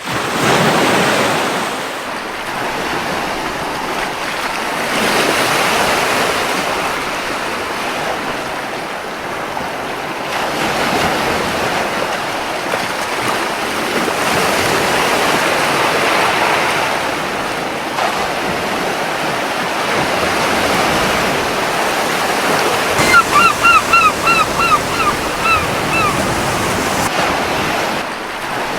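Ocean surf washing onto a beach, swelling and easing in waves every few seconds. Near the end a gull calls a quick run of about eight short, falling notes.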